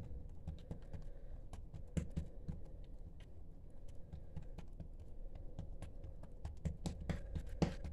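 Hands patting and pressing a piece of dough flat on a hard countertop: a run of soft, irregular taps and pats, with one slightly louder near the end.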